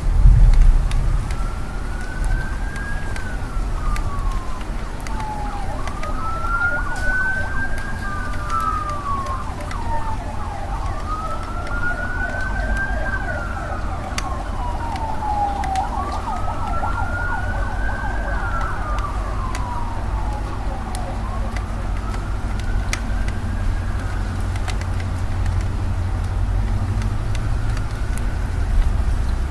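Emergency vehicle siren wailing in a slow rise and fall, one cycle about every five seconds, growing fainter toward the end. Under it runs a steady low rumble of city traffic.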